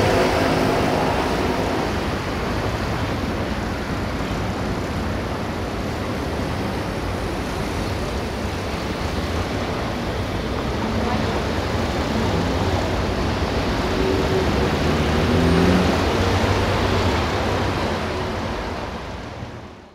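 City street traffic at a junction: a steady wash of cars and other vehicles driving past, with a vehicle's engine note rising briefly about three-quarters of the way through. The sound fades out over the last couple of seconds.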